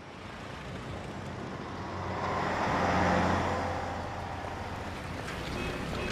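Street traffic with a motor vehicle's engine passing by, swelling to its loudest about three seconds in and then fading.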